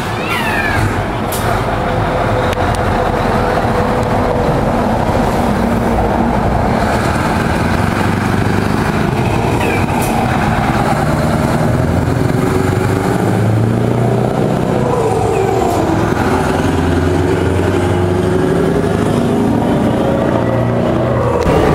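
Diesel engine of a Scania tractor-trailer running as the truck drives past, a steady low engine note whose pitch dips and rises around the middle, with a few short clicks.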